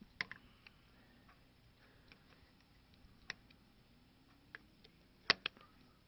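Scattered small clicks and knocks of a hard drive and its mounting pieces being worked loose by hand inside a desktop computer case, with the two sharpest clicks near the end.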